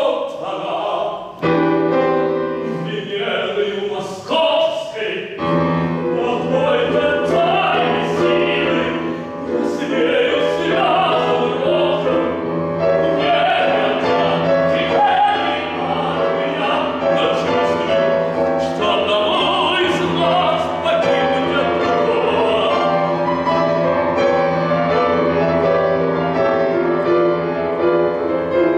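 A tenor singing a classical vocal piece with grand piano accompaniment on a Seiler grand. The piano comes in fuller about five seconds in, under the sustained sung line.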